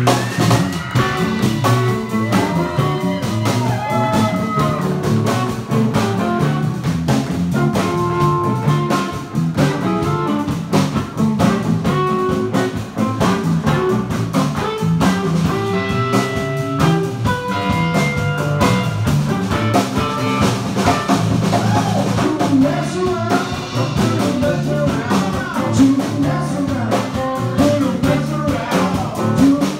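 Live blues band playing: electric guitars over a drum kit, with many shifting guitar notes and steady drumming.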